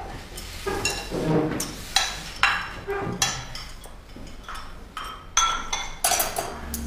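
Dishes and cutlery clinking: a series of a dozen or so sharp clinks with brief ringing as china bowls, plates and utensils are gathered up and knocked together after the meal.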